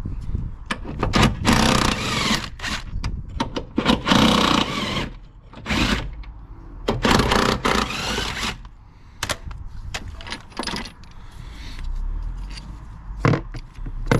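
Hand tools working metal fasteners loose on a car's engine mount: several scratchy stretches of about a second each, with sharp metallic clicks and clinks throughout.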